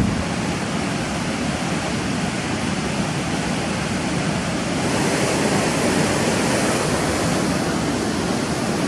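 Steady rushing tyre and wind noise of a Ford F-250 pickup truck driving on a gravel road. It grows a little louder and brighter about five seconds in.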